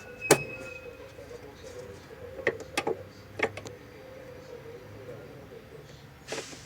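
Several short, sharp clicks or knocks: one about a third of a second in, a few between two and a half and three and a half seconds in, and another near the end, over a faint steady hum.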